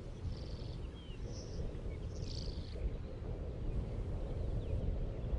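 Open-field ambience: a steady low rumble of wind on the microphone, with a few short, faint high chirps in the first three seconds.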